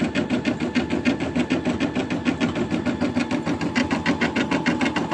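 Brother Innov-is M280D embroidery machine stitching out a design, its needle running in a fast, even rhythm of stitches.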